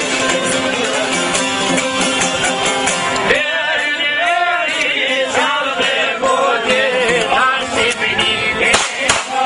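Music: steady instrumental accompaniment, then a man singing with a wavering, bending pitch from about three seconds in.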